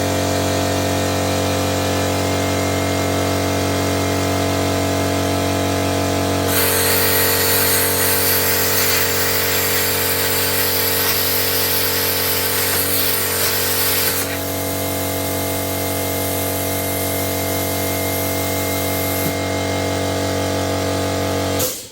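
Plasma cutter at 40 amps cutting 20 mm steel plate: a steady machine hum throughout, with a loud hissing blast from the torch about a third of the way in that lasts around eight seconds, then stops while the hum carries on. The sound cuts off abruptly near the end.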